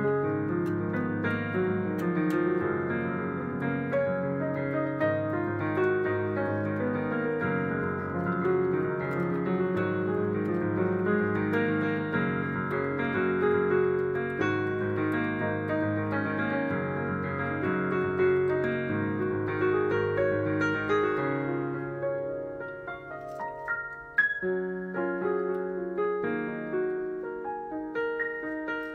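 Improvised keyboard music in a piano or electric-piano sound: dense, overlapping sustained chords. They thin out about three quarters of the way in, and a sharp struck chord comes shortly after, followed by sparser notes.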